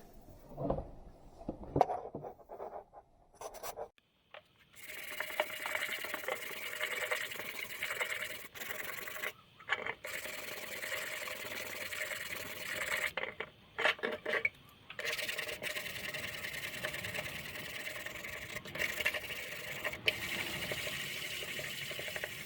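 A few scattered knocks, then steady rubbing and scraping of a workshop task, broken by a couple of short pauses.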